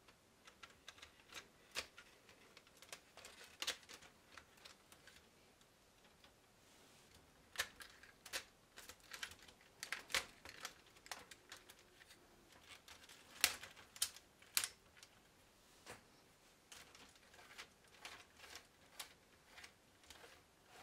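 Plastic Lego Technic parts clicking and snapping as they are pressed and fitted together by hand, in irregular sharp clicks. There is a short lull near the middle, and the loudest snaps come about two-thirds of the way through.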